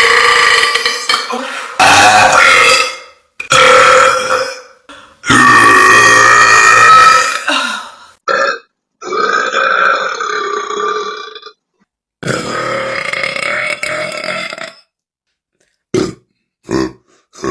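A woman burping over and over: a run of long, loud burps, each lasting one to three seconds with short pauses between, then three short burps near the end.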